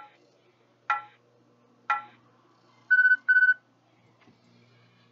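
Electronic interval timer beeping: three short beeps a second apart, then two longer beeps in quick succession, a countdown marking the end of a timed exercise interval.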